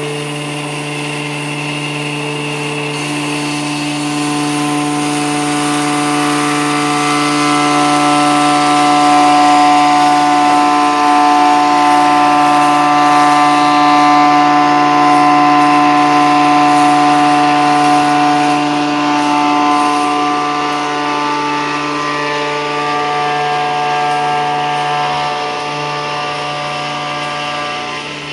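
Electric woodworking power tool running continuously with a steady pitched hum, growing a little louder in the middle and easing off near the end.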